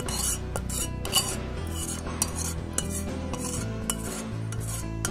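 Steel spoon clinking and scraping against a ceramic bowl of sugar syrup, with a few sharp taps, over quiet background music.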